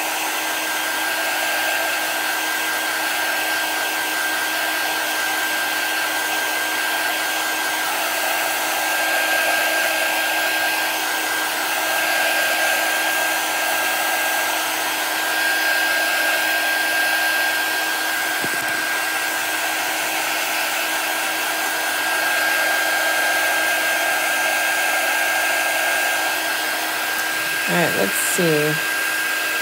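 Handheld craft heat tool blowing steadily, with a steady high whine over the rush of air, drying freshly applied chalk paste.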